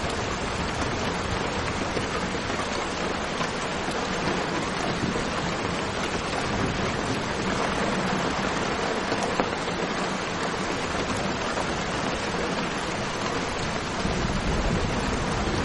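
Steady rain, an even hiss without separate drops standing out. A deeper low rumble builds in near the end.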